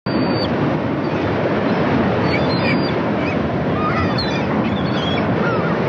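Steady rush of ocean surf and wind, with short chirping bird calls over it.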